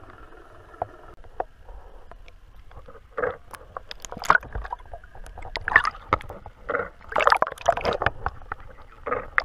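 Water sloshing and splashing around a GoPro in its housing at the surface, fairly quiet at first, then in irregular bursts from about three seconds in.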